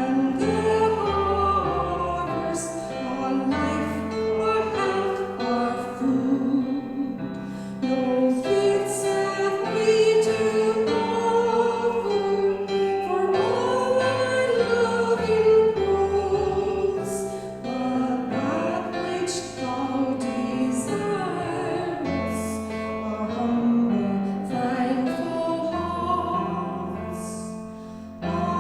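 Hymn singing: voices carrying a sung melody over sustained instrumental accompaniment.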